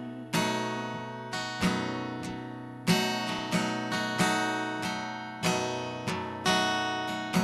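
Acoustic guitar playing slow chords, about one strum a second, each left to ring out and fade before the next, with no singing over them.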